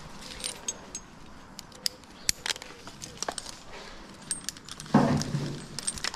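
Metal climbing hardware on a tree climber's harness, carabiners and clips, clinking and jangling in irregular sharp clicks as he ascends a tree trunk on climbing spikes. A louder burst of rustling noise about five seconds in lasts about a second.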